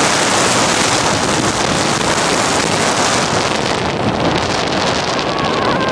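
Wind rushing over the microphone of a moving motorcycle, a loud steady noise that covers any engine sound; the high hiss thins out about three and a half seconds in.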